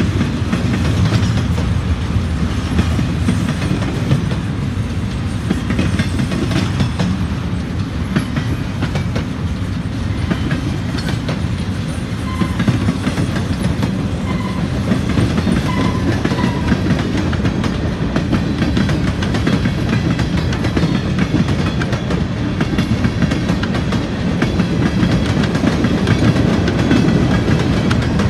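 Freight train rolling past at close range: steel wheels rumbling and clacking steadily over the rail joints as double-stack container well cars and then covered hopper cars go by.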